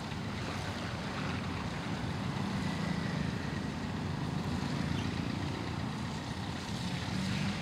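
Road traffic wading through floodwater: motorcycle, scooter and auto-rickshaw engines running steadily at low speed, with the wash of water stirred up by the wheels.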